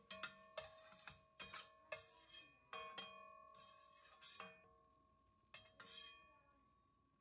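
Metal turner tapping and scraping against a stainless steel pan while cherry tomatoes are scooped out. There are more than a dozen sharp clinks over the first six seconds, each leaving the pan ringing, and the ringing dies away near the end.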